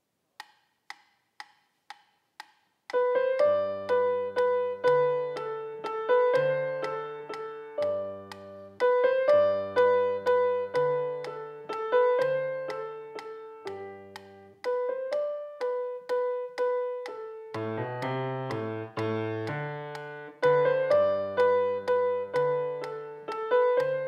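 A metronome ticks five times, about two ticks a second, as a count-in. Then a grand piano plays a simple two-handed beginner's piece, a melody over low bass notes, with the metronome ticking on underneath.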